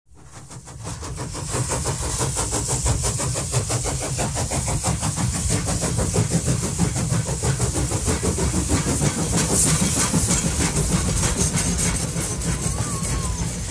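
Vintage tram running along its track: a steady rumble of wheels on rail with rapid clicking and hiss, fading in over the first couple of seconds.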